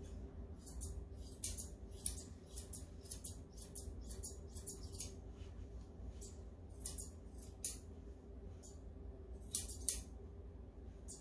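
Grooming scissors snipping through a Bedlington terrier's head coat: a quick, irregular run of short crisp snips for about the first five seconds, then a few scattered snips.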